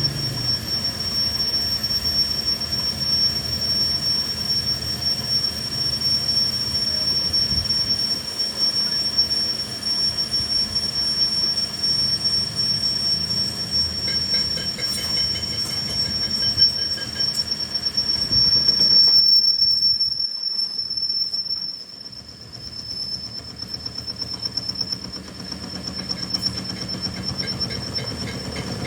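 Metal-cutting machinery in a workshop giving a steady high-pitched squeal over a rushing noise, as in machining or grinding a steel gear. It swells louder about two-thirds in, then drops suddenly and carries on more quietly.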